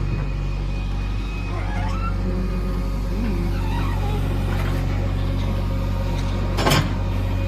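JCB backhoe loader's diesel engine running steadily while it digs, with a single sharp knock about seven seconds in.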